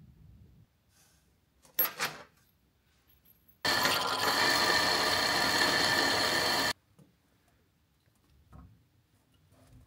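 Drill press running with its twist bit drilling a hole through a steel hinge part clamped in a drill vise: a loud, steady cutting noise with a high tone, about three seconds long, starting about four seconds in and cutting off abruptly. A short metallic knock comes a couple of seconds before it.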